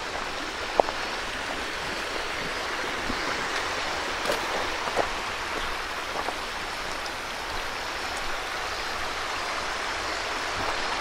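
Shallow river running over stones and gravel, a steady rushing of water through small riffles, with a few brief clicks.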